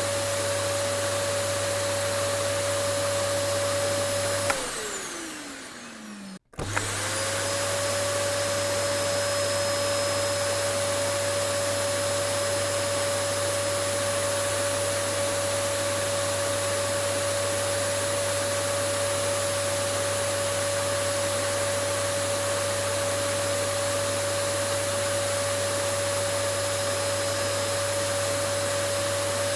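Vacuum cleaner motor running with a steady whine and rushing air. About four seconds in it is switched off with a click and winds down, its pitch falling for about two seconds. It is then switched back on and spins up quickly to run steadily again.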